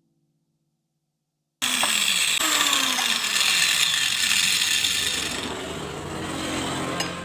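Mini angle grinder in a home-made chop-saw stand cutting through material: a dense, loud grinding noise that starts suddenly about a second and a half in, with the motor's pitch sagging under load, then easing and getting a little quieter after about five seconds.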